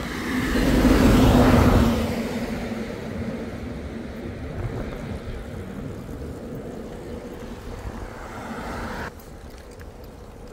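A motor vehicle passing close by, loudest a second or two in and then fading into steady traffic noise. The background drops suddenly about nine seconds in.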